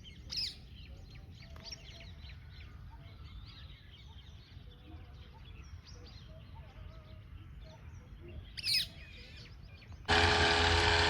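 Many small birds chirping and calling over a low steady rumble, with two louder calls about half a second in and near the nine-second mark. About a second before the end, a much louder, steady droning sound starts suddenly.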